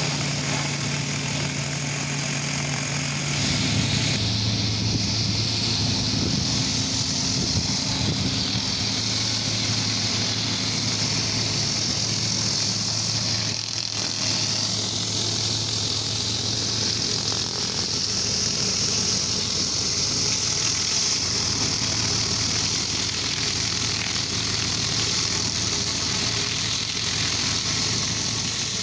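Pressure washer's engine running steadily while a rotary surface cleaner sprays water across concrete, a continuous high hiss over the engine hum. About four seconds in the engine note drops lower and the spray hiss comes in strongly.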